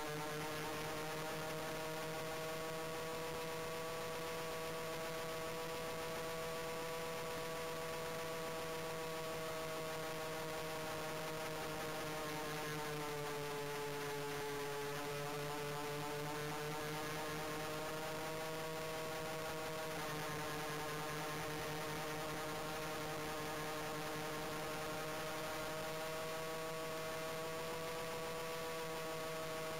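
Radio-controlled model Heinkel He 219's motors and propellers running in flight, picked up by a camera on the airframe: a steady droning hum that dips in pitch about halfway through and steps down slightly a few seconds later.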